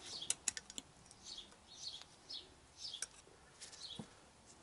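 Sharp metal clicks of a pick and screwdriver working at the circlip and seal of a motorcycle fork slider: a quick cluster in the first second, then single clicks about three and four seconds in. Behind them a small bird chirps over and over, short falling notes about twice a second.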